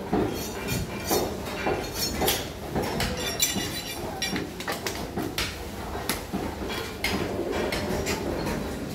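Butchers' cleavers chopping goat meat on wooden log blocks: repeated, irregularly spaced sharp chops.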